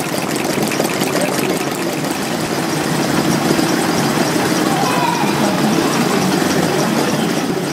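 Small model engines running: a steady, fast mechanical ticking and clatter, with people's voices in the background.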